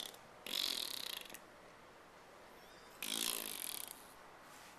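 Two short blown raspberries, fart noises made with the lips: a buzzing, hissy burst about half a second in and another about three seconds in, each lasting about a second.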